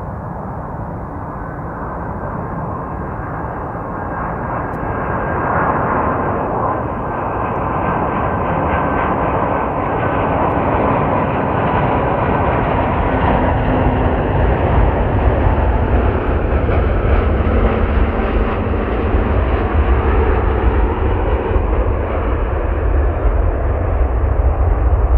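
Airbus A320-family twin-jet airliner on final approach, its jet engines making a steady rushing noise with a faint whine, growing steadily louder as the plane descends to the runway. A deep rumble strengthens from about halfway through.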